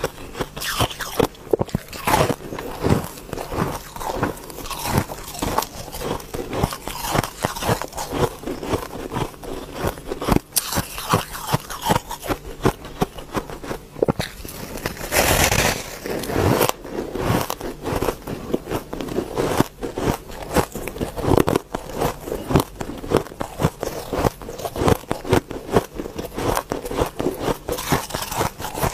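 Close-miked biting and chewing of a dyed, layered block of compressed powdery ice: a steady run of crisp, crackly crunches, with one longer, louder crunch about halfway through.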